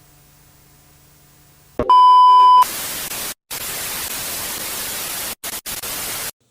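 A faint held keyboard tone, then a loud single-pitch electronic beep about two seconds in, followed by about four seconds of hiss-like static that drops out briefly a few times and cuts off suddenly.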